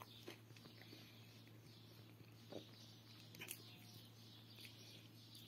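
Near silence: faint, soft patters and ticks of a hand kneading and squeezing a moist bulgur mixture in a plastic bowl.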